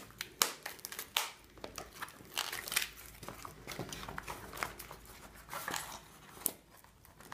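Taped cardboard parcel being pried and pulled open by hand: irregular crinkling and crackling of packing tape and cardboard, with a few sharper clicks.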